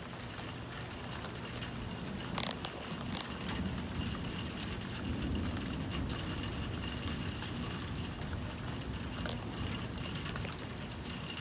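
Car being driven through a hurricane: steady engine and road noise, with a couple of sharp clicks about two and a half and three seconds in.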